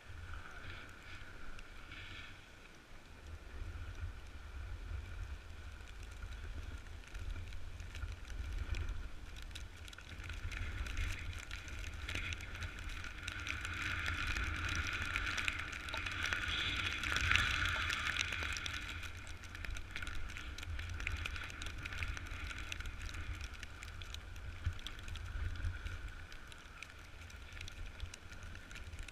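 Snowboard sliding and scraping over snow, swelling louder about halfway through, with blizzard wind buffeting the microphone as a low rumble.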